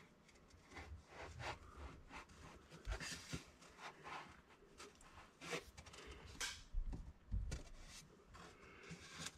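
Faint, irregular rubbing and scraping with small knocks: hands working against a cardboard speaker port tube and the wooden cabinet while a bead of construction adhesive is run around the port.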